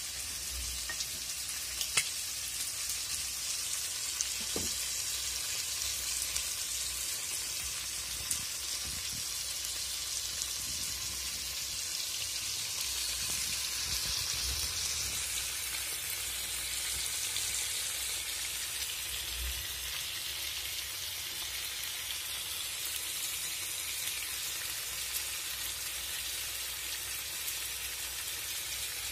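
Masala-coated fish shallow-frying in a little oil on a flat dosa pan over low flame, sizzling steadily. There is a single sharp tick about two seconds in.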